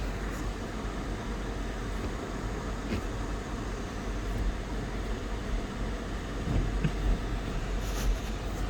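Steady low hum and airy whoosh inside the cabin of an idling 2004 Lexus GX 470: the 4.7-litre V8 at idle with the heater blower running.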